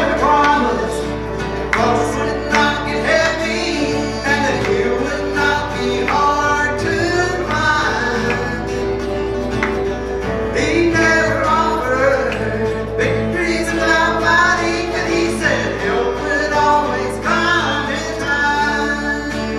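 Live country-gospel band playing a song, with electric, acoustic and bass guitars under singing voices.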